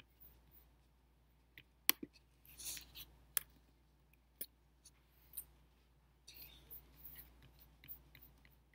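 Faint scattered sharp clicks and short rustling sounds of small objects being handled on a desk.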